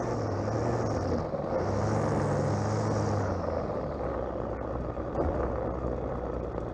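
String trimmer (strimmer) running steadily. Its pitch rises briefly about a second and a half in, then drops to a lower, steadier note about halfway through.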